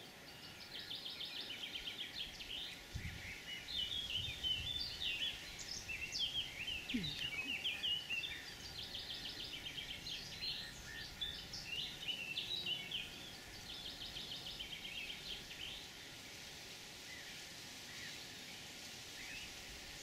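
Songbirds singing: repeated quick high trills and warbled phrases, one after another, thinning out in the last few seconds, over a steady faint background hiss.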